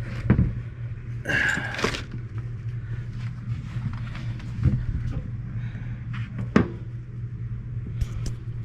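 Screwdriver clicking and scraping on the furnace's wiring terminal screws as loose connections are tightened: a few scattered knocks, a brief scrape about a second and a half in, and a steady low hum underneath.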